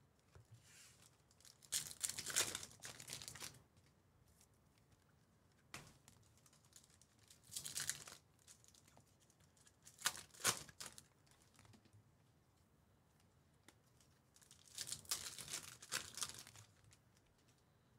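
Plastic-foil wrapper of a trading-card pack being torn open and crinkled by hand, in several short bursts with quiet gaps between.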